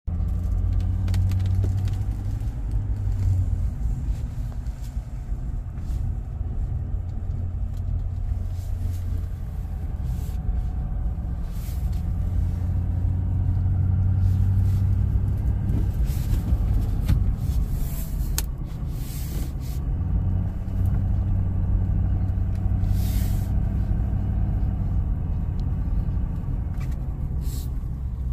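4x4 pickup truck driving over a snow-covered road, heard inside the cab: a steady low engine and tyre rumble that swells and eases, with scattered brief clicks and short swishes.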